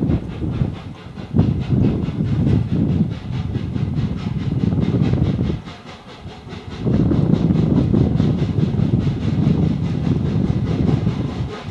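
Full-size Thomas the Tank Engine steam locomotive working its train of coaches, rapid exhaust chuffs over wheel and rail noise. The sound drops away for about a second midway, then returns.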